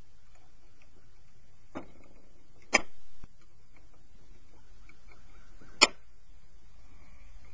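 Hand tools clicking against starter motor parts while its through-bolts are fitted: a few isolated sharp clicks, the loudest two about three seconds apart.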